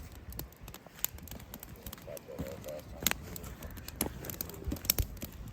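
Campfire crackling and popping: irregular sharp snaps, with a few louder pops about three, four and five seconds in.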